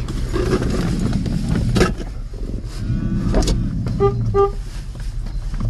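Jeep engine running at low speed on a dirt track, a steady low rumble heard from inside the cab, with a few knocks. About four seconds in, a car horn gives two short beeps.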